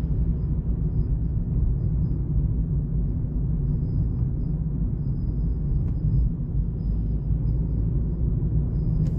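Steady low rumble of a car's engine and tyres heard inside the cabin as it creeps forward in slow, congested traffic.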